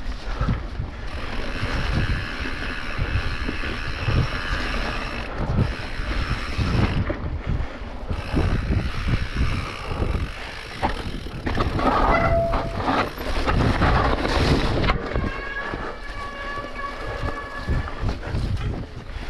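A mountain bike ridden fast over rough grassy singletrack, heard from a bike-mounted action camera. Wind buffets the microphone, with knocks and rattles from the bumps, and there are stretches of a steady buzz from the rear freehub while coasting.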